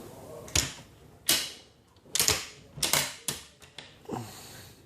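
A series of sharp clicks and knocks from the boat's cabin fittings, such as latches and cabinet doors being worked, with several coming in quick pairs.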